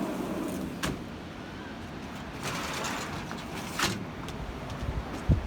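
A sliding balcony door being opened, with clicks and a rolling rush, letting in steady outdoor noise; a low thump near the end.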